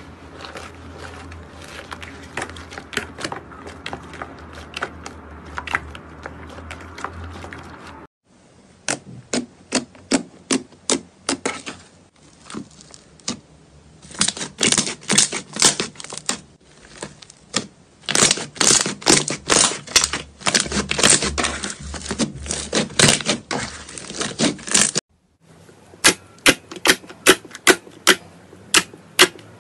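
Hand-played slime being squeezed, pressed and poked, making a run of sharp wet clicks and crackles as trapped air pops. The sound is softer crackling over a low hum at first, then dense clicking, and after a cut near the end it becomes evenly spaced clicks, about three a second.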